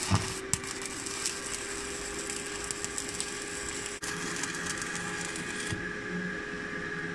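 Stick (arc) welding: the electrode's arc crackling and sizzling steadily against steel as a weld is laid on a stair stringer, with a steady hum underneath; the crackle cuts off near the end as the arc is broken.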